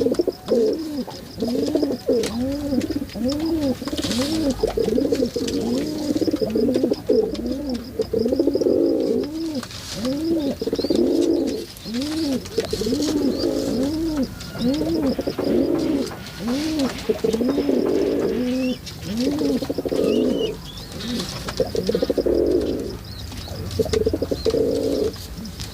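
Pigeon cooing over and over, a steady run of low rising-and-falling coos about one a second.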